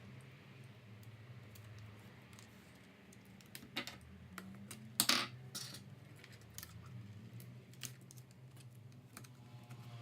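Scattered light clicks and taps of small laptop parts and tools being handled, with the loudest knocks about four and five seconds in, over a low steady hum.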